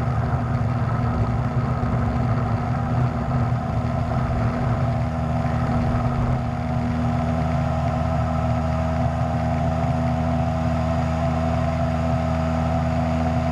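Single-engine Cessna's piston engine and propeller running steadily at high power, a loud, even drone heard from inside the cabin.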